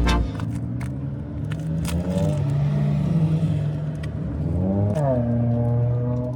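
Car engine running under way, its pitch rising as it accelerates, then dropping sharply about five seconds in at a gear change.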